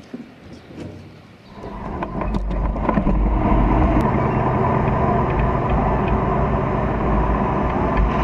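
Tank running, heard close from a camera on its turret: a heavy, steady engine-and-track rumble that swells up about a second and a half in and then holds. Before it, only a few faint clicks.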